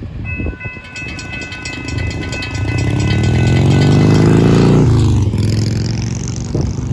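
A motorcycle accelerating past, its engine pitch climbing and growing louder, then dropping suddenly as it goes by about five seconds in.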